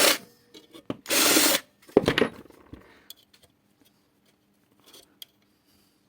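Cordless drill with a step drill bit, run in short bursts while drilling out a microwave oven's feedthrough capacitor: one burst cuts off just after the start and another runs for about half a second a little after one second in. A sharp clunk follows about two seconds in, then only faint handling ticks.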